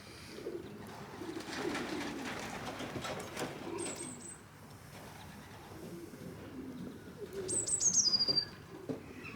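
Young pigeons cooing around the loft, with wings flapping. A high, thin chirping comes twice, about four and eight seconds in, the second sliding down in pitch.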